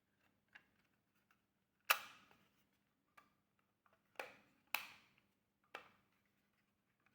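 Plastic shell piece of a ZimaBlade snapping back onto the case: a handful of sharp clicks as its snap-fit clips lock, the loudest about two seconds in and two more in quick succession a little past halfway.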